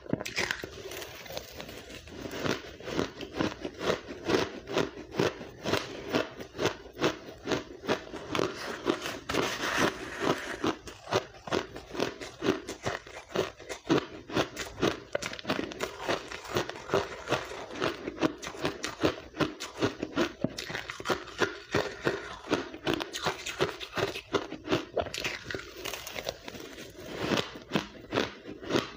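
Close-miked crunching and chewing of blender-crushed ice, a dense run of small crisp crunches one after another.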